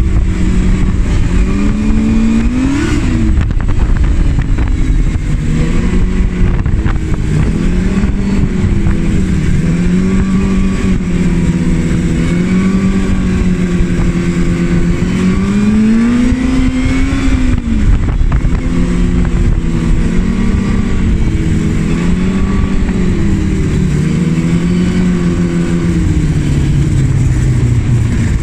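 Arctic Cat ZL 440 snowmobile's two-stroke engine running at trail speed. Its pitch rises and falls over and over as the throttle is worked, swells broadly about two-thirds of the way through, and drops as the sled slows near the end.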